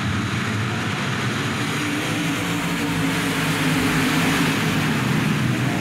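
Dirt-track race car engines running at speed, a steady, continuous drone.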